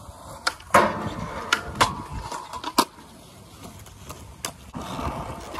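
Skateboard rolling across concrete, with several sharp clacks, the loudest about three-quarters of a second in.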